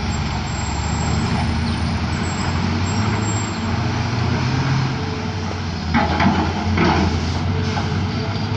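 Heavy diesel machinery, an excavator working dredged spoil, running steadily with a low engine drone. A couple of short knocks come about six and seven seconds in.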